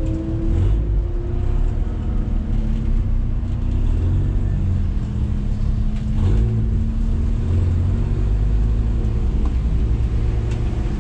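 Renault Mégane 3 RS's 2.0-litre turbocharged four-cylinder running steadily at low revs, heard from inside the stripped, roll-caged cabin as the car creeps along in slow traffic, over a steady low rumble.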